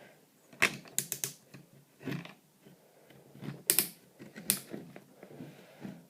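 Plastic parts of a Transformers Bumblebee toy clicking and snapping as they are moved and fitted together during transformation: several sharp, irregularly spaced clicks, some in quick clusters.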